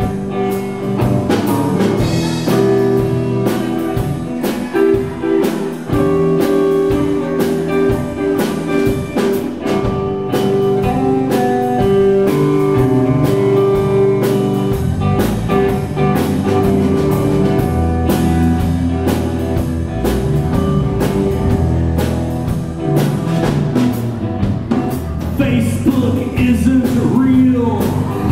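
A rock trio playing live: electric guitar, electric bass and drum kit, with steady drum and cymbal hits throughout. About halfway through, the bass comes in deeper and fuller.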